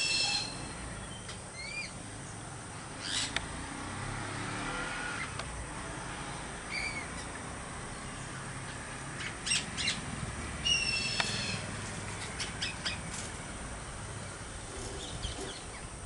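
Parrots calling in the tree as they feed: scattered short, harsh screeches, several in quick succession around the middle, with a few softer short whistles between.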